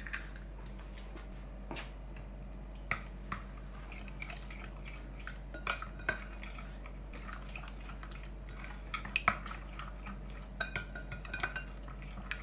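Metal fork clicking and scraping against a bowl while beating an egg into a thick marinade paste, with irregular taps that come thicker near the end.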